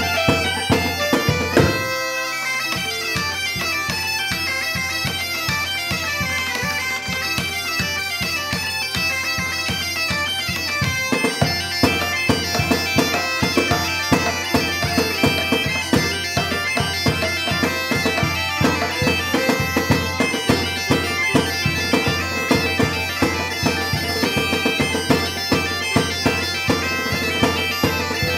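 Galician gaitas (bagpipes) playing a traditional dance tune over their steady drone, with a bass drum and a side drum beating time. The drone drops out briefly about two seconds in, then the tune carries on.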